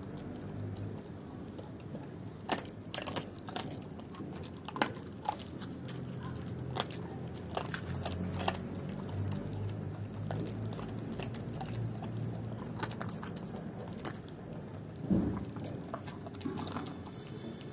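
German Shepherd chewing raw chicken feet, the bones giving sharp, irregular crunches that come in quick runs, with the loudest crunch about fifteen seconds in.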